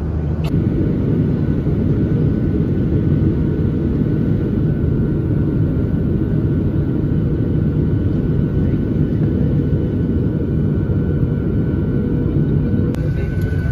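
Airliner cabin in flight, heard from a window seat: the steady, even noise of the jet engines and rushing air, heavy in the low end, during the descent to land.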